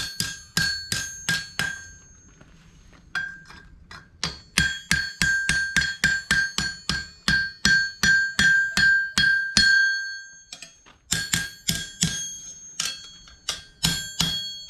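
Hand hammer striking a horseshoe on a steel anvil, each blow ringing with a clear metallic tone. The blows come in fast runs of about four a second, broken by short pauses about two seconds in and again near ten seconds, as the shoe is bent around the anvil horn.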